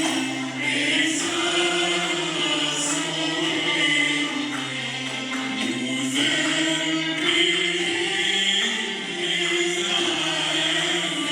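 Arabic tarab ensemble performing a song, with voices singing the melody together over the instruments.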